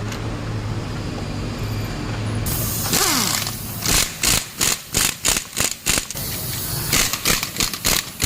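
A wrench working on the car's front suspension fasteners during disassembly. A steady low hum runs at first, then from about three seconds in come short, sharp rattling bursts, about two a second.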